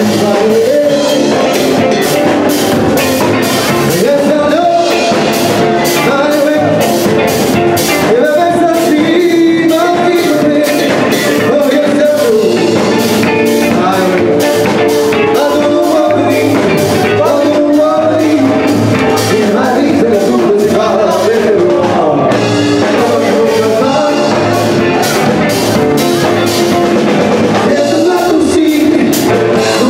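Live band playing an upbeat song: electric guitars and a drum kit keeping a steady beat under a singer's voice.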